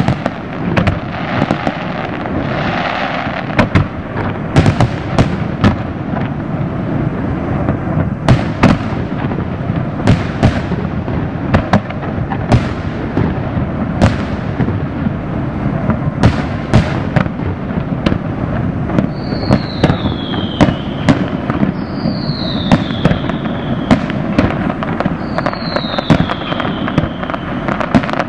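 Aerial fireworks display: a rapid, continuous barrage of shell bursts and bangs over a steady rumbling bed. From about two-thirds of the way in, a high falling whistle repeats every couple of seconds.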